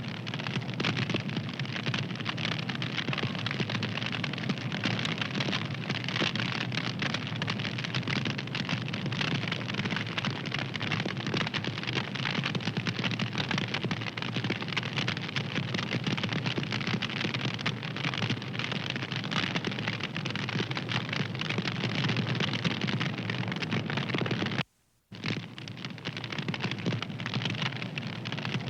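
Fire crackling: a dense, continuous stream of small crackles and pops. It cuts out to silence for about half a second near the end, then resumes.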